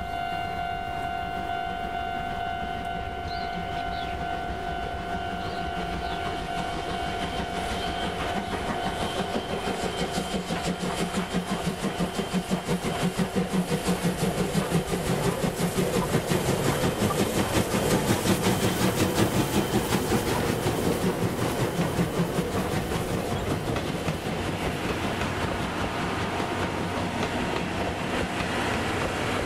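C58 steam locomotive: its whistle holds a steady blast that fades out within the first few seconds, then the exhaust chuffs build in a quick, even rhythm as it draws near and passes, loudest midway, with wheels clattering over the rail joints as the coaches roll by near the end.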